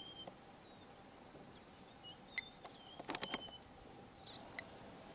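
Faint bush ambience: small birds giving short, high whistled chirps, over a faint steady hum. A quick cluster of sharp clicks comes about three seconds in.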